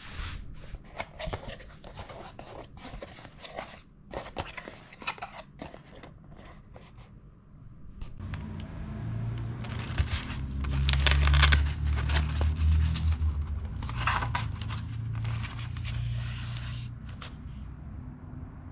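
Hands opening a cardboard package and handling what is inside: a run of short scraping, tearing and rustling sounds of cardboard and packing, busier and louder from about halfway through.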